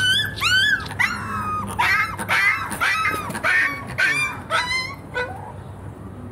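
Puppy yelping and whimpering: a rapid run of high-pitched yips, two or three a second, that stops about five seconds in.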